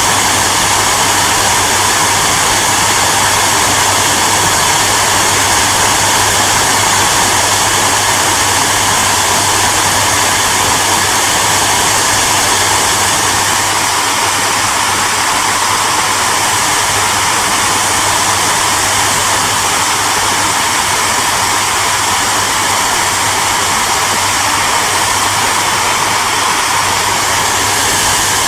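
Hair dryer running steadily: an even blown-air noise with a low hum underneath.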